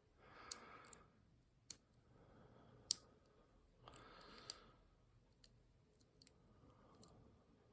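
Lock pick and tension wrench working the pins inside a tiny Master padlock: scattered small, sharp clicks at irregular intervals about a second apart, as the pins are set toward a false set.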